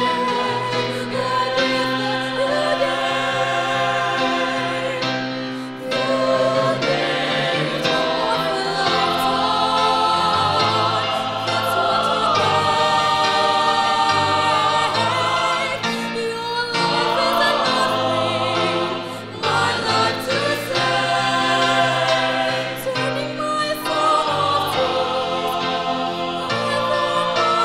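Mixed choir of men's and women's voices singing a Christian song in harmony, with accompaniment underneath.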